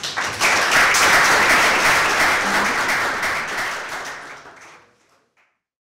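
Audience applauding, starting right away and dying away about five seconds in.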